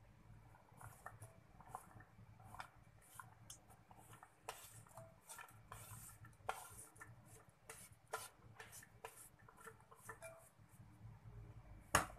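Faint, irregular clicks and taps of a small ceramic plate and sliced shallots, garlic and chilli against a ceramic plate as the pieces are pushed in, with one louder knock near the end.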